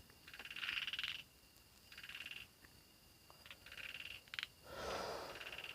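Frogs calling: short rattling trills that repeat about every second and a half. A brief soft rustle or hiss about five seconds in.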